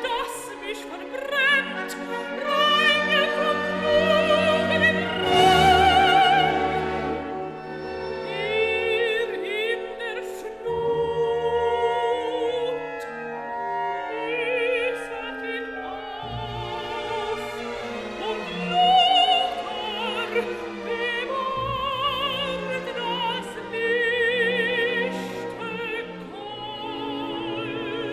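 Background music: operatic singing with heavy vibrato over an orchestral accompaniment.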